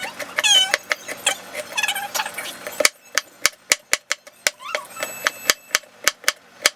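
A kitchen knife chopping on a cutting board: sharp, even strokes about four a second, starting about three seconds in. Before the chopping there are indistinct sounds that rise and fall in pitch.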